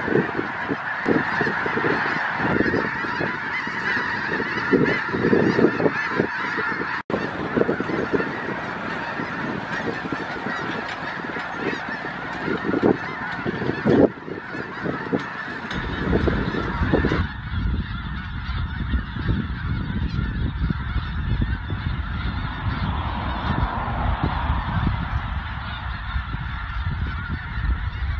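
A huge flock of snow geese calling, a dense, continuous din of many overlapping honks. Just past halfway a steady low rumble joins beneath the calls.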